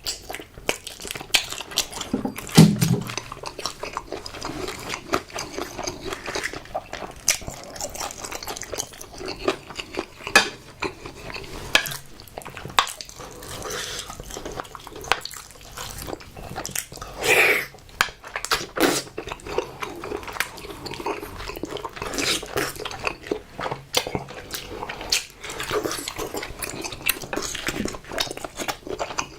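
Close-miked eating sounds: biting and chewing food, with a steady stream of sharp wet mouth clicks and a couple of louder bites.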